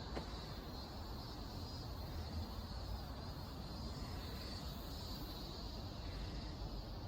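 Steady outdoor street ambience: a low rumble of distant traffic under an even hiss, with one faint tick at the very start.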